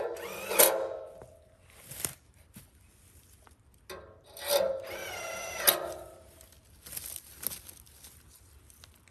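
Power drill driving screws through the ladder's top rungs into a cedar log: the motor whines in two runs of about two seconds each, with a shorter run near the end and a few sharp knocks in between.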